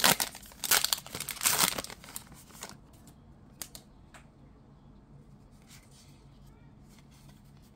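Wrapper of a 2023 Topps Heritage baseball card pack crinkling and tearing as it is ripped open, for about the first three seconds. After that the cards are pulled out and fanned by hand, with a few faint clicks and rustles.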